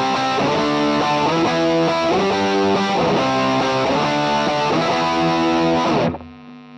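Electric guitar played through an MC-FX-modded 1985 Boss OD-2 Turbo Overdrive pedal: distorted chords in a steady rhythm. About six seconds in the sound drops sharply in level and brightness, and a last chord rings on more quietly.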